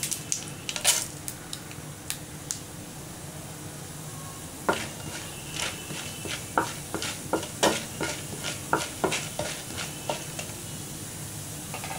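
Chana dal, urad dal, cumin and mustard seeds sizzling steadily in hot oil in a nonstick pan while a wooden spatula stirs them, clicking and scraping against the pan. A few clicks come in the first couple of seconds, and a dense run of clicks from about five seconds in until shortly before the end.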